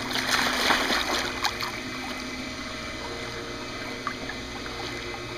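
Pool water splashing as a child is dropped into it, loudest in the first second and a half, then the water sloshing and lapping as it settles.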